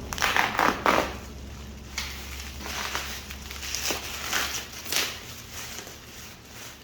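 Packaging being torn and crumpled open: irregular crackling rustles, loudest and densest in the first second, then scattered crackles every second or so.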